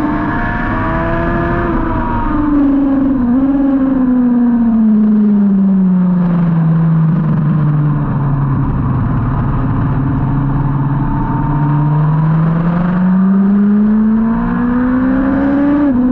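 2003 Yamaha R1's inline-four engine from onboard, with wind rush: the engine note falls as the bike slows into a corner, with a quick dip about three seconds in, stays low through the corner, then rises steadily as the bike accelerates out, dropping suddenly at an upshift near the end.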